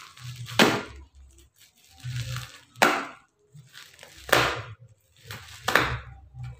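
A knife slicing and ripping through the plastic wrapping and packing tape of a parcel: four sharp rips about a second and a half apart, with fainter scraping and rustling of plastic between them.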